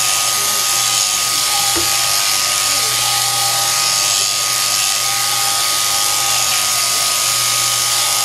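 Sheep-shearing handpiece on an overhead drive's jointed arm, running with a steady buzzing whine as its comb and cutter shear through a sheep's fleece.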